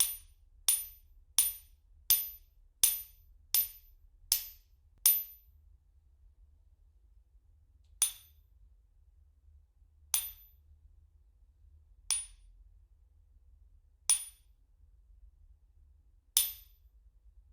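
A hammer striking hard, sharp blows with a short high ring after each: eight in quick succession, a bit faster than one a second, then five single strikes about two seconds apart.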